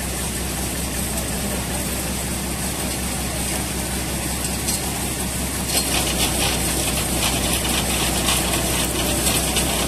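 Heavy recovery truck's engine running steadily at a low idle. About six seconds in, a rapid mechanical clicking starts and keeps going over the engine.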